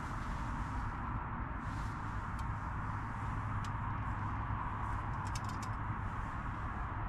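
Steady drone of road traffic circulating on a nearby roundabout, tyre noise with a low rumble underneath. A few light clicks of camping kit being handled, with a quick cluster about five and a half seconds in as a small cooking pot is picked up.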